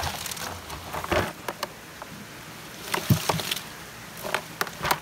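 A catch of small fish and shrimp being shaken out of a mesh net bag into a plastic bucket: irregular clattering taps and wet patter against the plastic, in several bursts, the loudest about three seconds in.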